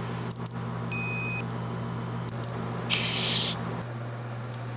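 Parallax Boe-Bot robot's piezo speaker beeping: two quick high blips, a longer steady tone, then two more quick blips, the beep signal the robot gives when it rejects a command it cannot execute and asks for a new one. A short burst of hiss follows about three seconds in.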